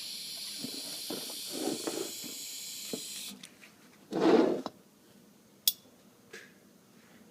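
TIG welding arc hissing steadily, then cutting off suddenly about halfway through as the arc is broken. A short, louder rush of noise follows, then a sharp click near the end.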